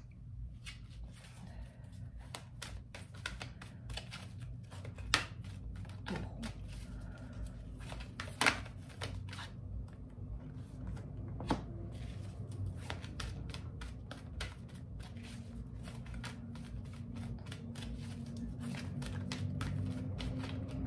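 A tarot deck shuffled by hand: a long run of soft card flicks and clicks, with a few sharper snaps about 5, 8 and 11 seconds in, over a steady low hum.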